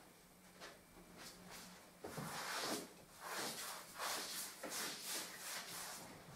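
Pasted lining paper rustling as it is unfolded and a paper-hanging brush swishing across it, smoothing the sheet onto the wall. Soft at first, then a run of short brushing strokes from about two seconds in.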